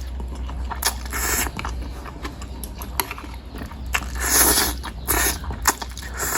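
Close-up mouth eating sounds of a person eating bakso meatballs and noodles: wet chewing and smacking with clicks, and about five louder noisy bursts such as slurps.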